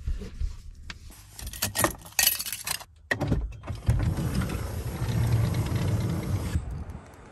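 Light clicks and rustling as bootlaces are tied. Then a minivan's power sliding door, opened from the key fob, runs for about three seconds with a steady mechanical whirr and stops suddenly near the end.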